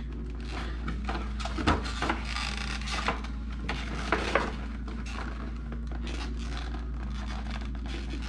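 Cosmetics packaging being handled and rubbed, with a few light clicks and knocks, as a bottle of eye makeup remover is worked loose from its holder in a gift set. A steady low hum runs underneath.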